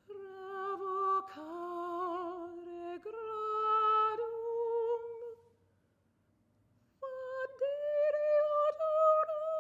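Solo soprano voice singing unaccompanied: held notes with vibrato in two phrases. The first lasts about five seconds and steps through several pitches. The second begins after a short silence and climbs slightly, broken by a few brief catches.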